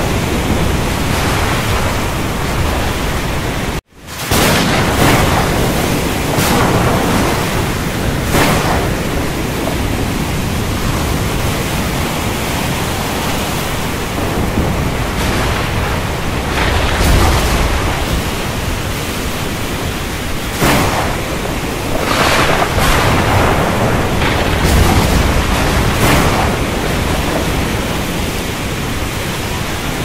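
Heavy rain falling in a steady, dense hiss, with thunder rumbling and swelling at times, most strongly a little past the middle and near the end. About four seconds in, the sound cuts out abruptly for a moment and then fades back in.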